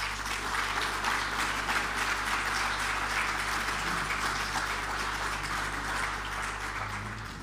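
Audience applauding steadily, dense clapping from a seated lecture-hall crowd, tapering off near the end.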